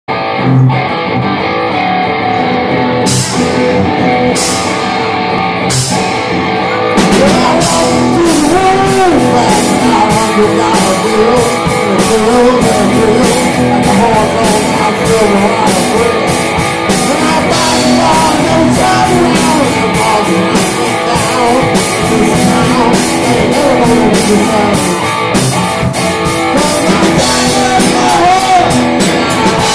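Live rock band playing: electric guitar and drum kit, with a man singing lead while he plays guitar. Scattered cymbal hits at first, then a steady beat and the vocal come in after several seconds.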